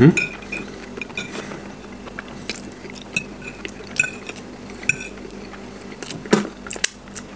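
Metal fork clinking and scraping against a ceramic plate while scooping up scrambled eggs, in scattered light clicks, with a louder one about six seconds in.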